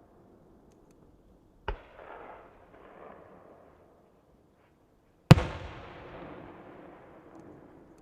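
Two aerial fireworks shells bursting, about three and a half seconds apart, the second much louder. Each sharp bang is followed by a long rumbling echo that slowly fades.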